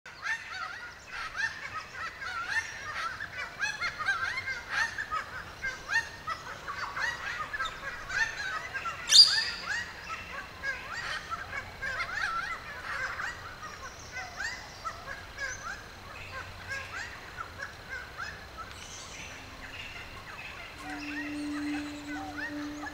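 Many birds calling at once, with dense short overlapping calls in a forest chorus. A single sharp crack comes about nine seconds in, and a steady low tone comes in near the end.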